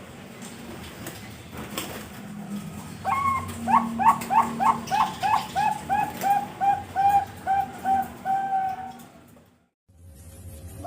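Zebra dove (Bangkok-type perkutut) cooing its song: a rapid run of about twenty short notes, roughly three to four a second. The opening notes are higher and louder, and the rest settle into an even, lower coo. The sound cuts off abruptly near the end.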